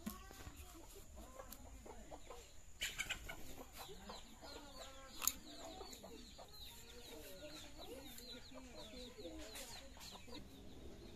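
Chickens clucking throughout, with small birds chirping high in the background. A few sharp knocks about three and five seconds in, as a green papaya is cut on a boti blade.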